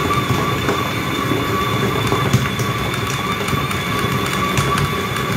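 Stand mixer kneading stiff bread dough: the motor runs with a steady whine over a rumble, and the machine rattles and clicks as the dough works in the steel bowl, shaking the mixer so that it would walk across the counter if not held.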